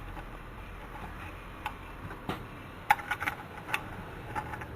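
Scattered light clicks and taps of small metal hardware, nuts and washers, being handled on an aircraft ammeter's terminal studs, about half a dozen, the sharpest just before three seconds in, over a faint low hum.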